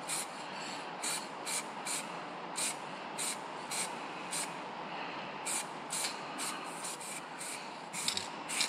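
Aerosol can of gold brake caliper paint spraying a first light coat onto a primed brake caliper. A steady hiss runs under short, sharper spurts of spray about twice a second.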